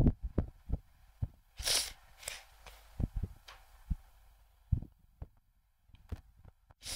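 Faint, scattered small clicks and soft low knocks, with two short hissy bursts a couple of seconds in.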